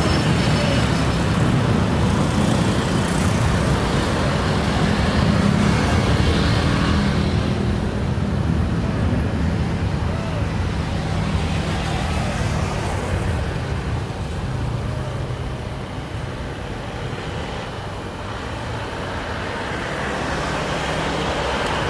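Boeing 737 airliner's twin jet engines at takeoff thrust: a loud, steady roar as it rolls down the runway and climbs away. The roar eases about two-thirds of the way through and builds again near the end.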